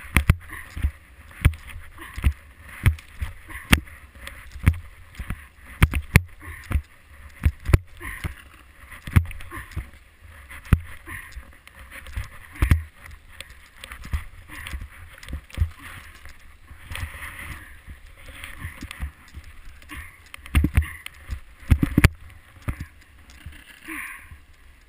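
Sliding downhill through powder snow on a GoPro held close to the snow: a steady hiss of snow with frequent, irregular thumps and knocks as the camera is jolted over the bumps.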